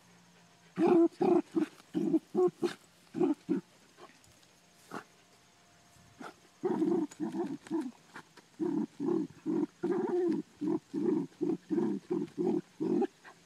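A dog barking in quick runs of short barks, about four a second: one run near the start, then after a pause a longer run to near the end.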